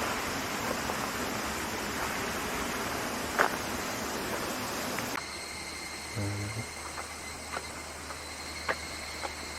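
Steady rush of a waterfall for about five seconds, then a sudden cut to a quieter spot where an insect calls with a steady high-pitched tone, with a few faint ticks.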